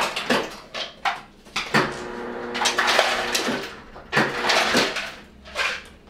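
A dog whining in a few drawn-out, pitched cries, the longest lasting over a second near the middle.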